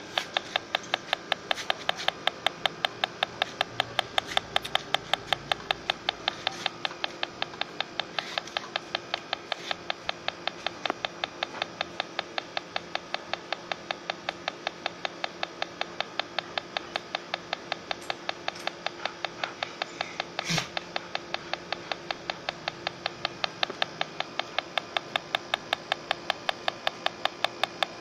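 Handheld electronic refrigerant leak detector ticking at a steady rapid rate as its probe is held to a compressor's pipe fittings. One louder click comes about two-thirds of the way in.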